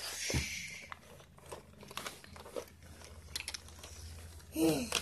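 Soft rustling and crinkling with scattered light clicks and knocks as toy trucks and die-cast cars are handled and pushed about on a play rug.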